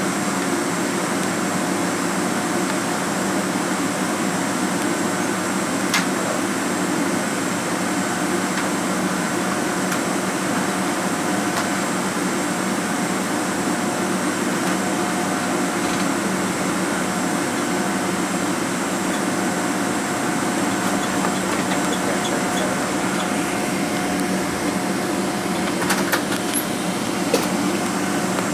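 Steady cabin noise of a Boeing 777-200ER taxiing, heard from inside the cabin: engines at idle and air-conditioning hum, with a few faint held tones. There are a few small clicks near the end.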